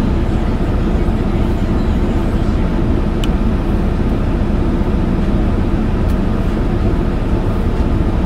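Steady low rumbling noise inside a stopped car, with a couple of faint clicks about 3 and 6 seconds in.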